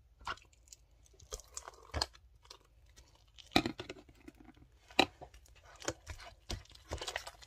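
Freshly mixed glue-and-activator slime being pulled and kneaded by hand out of a plastic container, making sticky squishing with irregular sharp pops and clicks, the loudest about three and a half and five seconds in.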